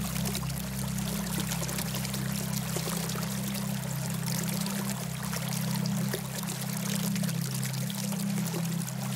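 Flowing, splashing water, like a stream or small waterfall, layered over a steady low drone of several held tones: the alpha-wave tones of a meditation soundscape.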